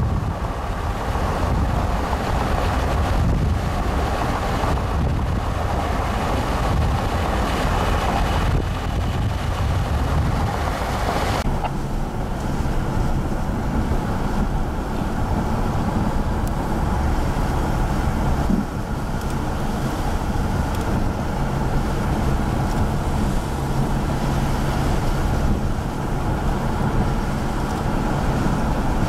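Wind gusting and rushing over the microphone, then about eleven seconds in an abrupt switch to the steady low hum of a vehicle's engine and road noise heard inside the cab.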